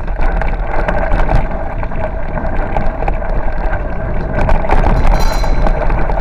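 Bicycle rolling fast over a rough dirt track, with steady rumbling road noise and many small knocks and rattles from the bike, under wind buffeting the microphone. A brief high-pitched sound comes in a little after five seconds.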